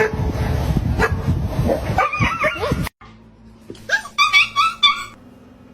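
A dog yipping and whining in short, high, gliding calls, over a loud rushing noise at first. The sound cuts off suddenly about halfway through, and a quick run of high yips follows about a second later.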